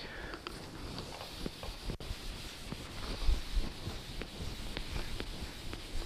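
Board duster wiping across a chalkboard in repeated strokes, a soft scrubbing, with a few light knocks along the way.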